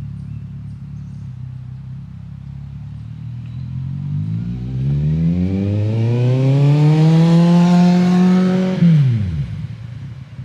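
2007 Kawasaki Z1000's inline-four engine through DANMOTO Carbon GP slip-on mufflers, idling, then revved up once in a long smooth climb. It is held high for a second or two, then the throttle is snapped shut and it falls quickly back to idle.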